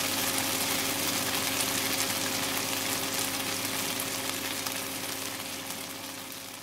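Yogurt-marinated boneless chicken pieces sizzling steadily as they are lightly fried in oil in a nonstick pan, with a faint steady hum underneath. The sizzle fades out near the end.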